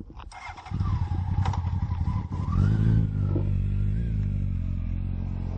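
Motorcycle engine starting to run about a second in as the bike pulls away, its pitch rising a little around halfway through and then holding steady.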